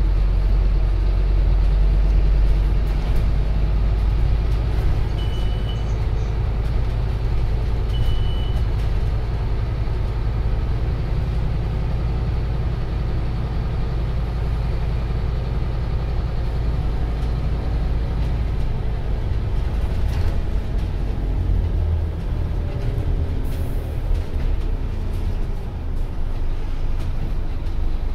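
Scania OmniCity CN230UB bus heard from inside the saloon: the diesel engine's steady drone while driving, its pitch rising and falling in the second half as the bus changes speed. Two short high beeps a few seconds in, the stop-request signal.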